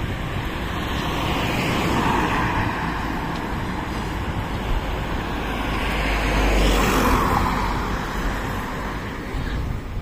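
Road traffic: cars passing by on the street, the sound swelling and fading twice, loudest about seven seconds in.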